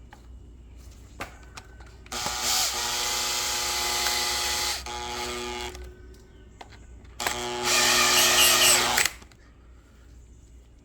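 Cordless drill/driver running in two bursts, the first about three seconds long and easing down before it stops, the second about two seconds and louder, as it drives in fasteners while the carburetor is being mounted.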